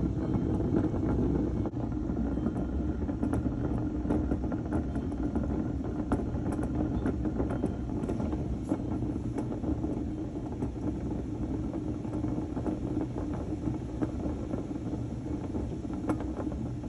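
Honda Dio scooter running with its wheel turning: a steady rumble with irregular clicks and rattles, the sound of a bad wheel bearing.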